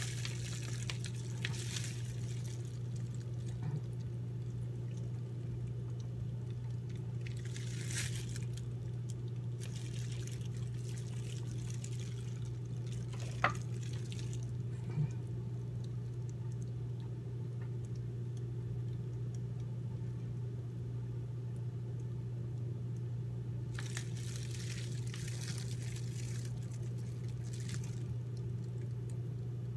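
Steady low hum with intermittent rustling of plastic wrap and bags being handled close to the microphone, in a few stretches of a second or more, and one sharp click about thirteen seconds in.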